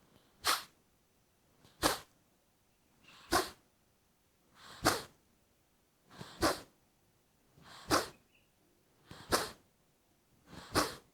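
Forceful nasal exhalations of Kapalbhati breathing through the left nostril: eight sharp puffs, about one every one and a half seconds, each driven by a snap of the abdomen.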